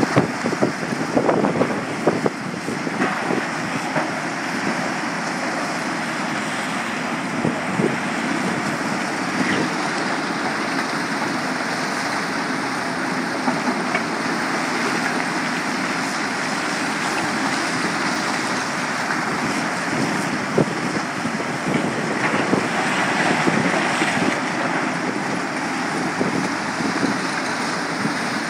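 Cat 325 and Cat 345 hydraulic excavators working rock next to a tracked mobile crusher: a steady blend of diesel engines and crusher running, with a few sharp knocks of rock striking rock.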